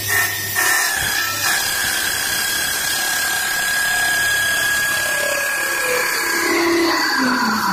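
CNC wood lathe running, its cutters turning a wooden bowl blank, a steady machine whine over the noise of cutting. Near the end a whine falls in pitch.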